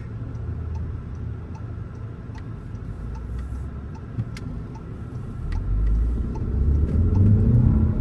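Car cabin road and engine rumble with a turn-signal indicator ticking steadily, about two to three clicks a second; the rumble grows louder about five and a half seconds in.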